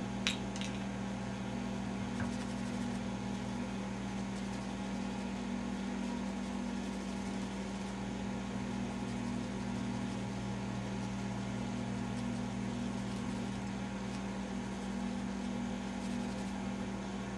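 Steady low background hum, with a couple of faint light clicks in the first two seconds.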